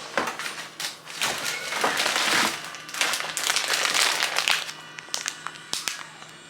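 Grocery bags and packaging rustling and crinkling as groceries are taken out, in several bursts, loudest about two to four seconds in. A few light knocks follow near the end.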